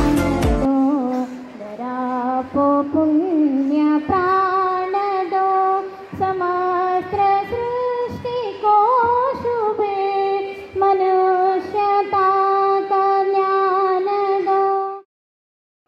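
A woman sings an invocation song solo and unaccompanied, with long held notes and ornamented glides between pitches. Her singing cuts off suddenly near the end. The first moment holds the tail of louder music with a beat.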